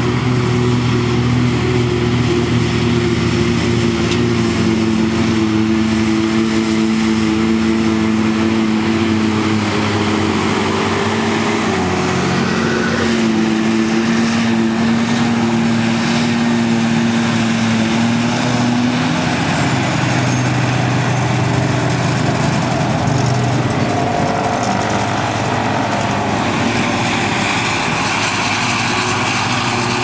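New Holland FX60 self-propelled forage harvester running under load as it picks up and chops grass for silage, a steady heavy engine drone, with the tractor pulling the silage trailer running alongside.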